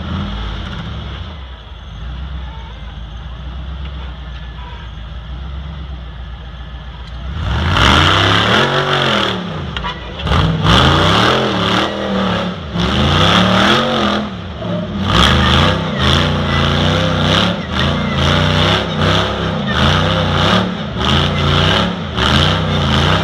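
Rock-crawling buggy's engine running low and steady, then revved hard from about seven seconds in. The pitch rises and falls in repeated surges roughly once a second as it claws up a steep dirt ledge under load.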